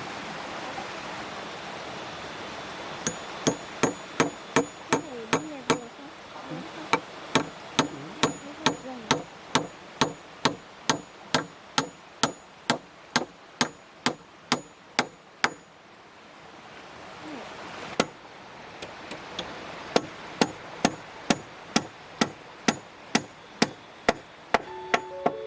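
Hammer driving nails with steady, evenly paced blows, about two a second, in two runs with a short pause in the middle.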